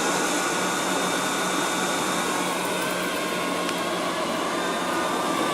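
Liectroux B6009 robot vacuum cleaner running steadily, its suction fan and brushes giving a constant whirring hiss with a steady hum, as it picks up fur from a rug.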